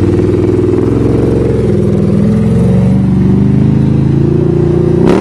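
2008 Can-Am 800 V-twin ATV engine running close by at low revs as the quad moves off slowly in four-wheel drive, its pitch dipping and then rising a little toward the end.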